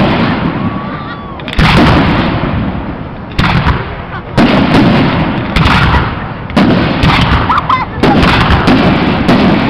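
Aerial firework shells bursting overhead in quick succession, about eight sharp booms, each trailing off in a rolling echo.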